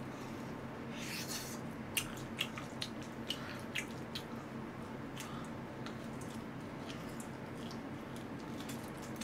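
Close-miked eating sounds: a man gnawing and chewing braised pork trotter meat off the bone, with lips smacking in a run of short wet clicks about two to four seconds in, then only a few faint ones. A steady low hum runs underneath.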